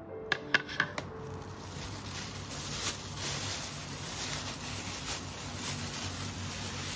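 A few sharp taps in the first second, then a thin clear plastic produce bag crinkling and rustling as a head of broccoli is handled and pulled out of it.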